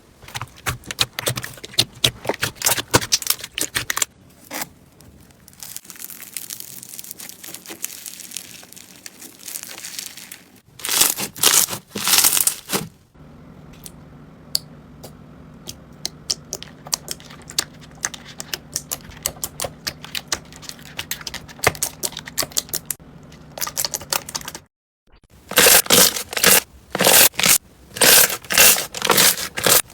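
Slime being squeezed and pressed by hand, giving dense runs of sharp clicking and crackling, in several short clips one after another. Near the end the crackles come in louder bursts about twice a second.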